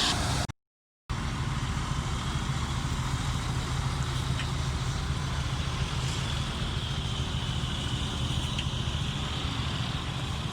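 Combine harvester running steadily with a low engine drone and a broad whirring haze from the machinery. The sound drops out for about half a second near the start, then resumes unchanged.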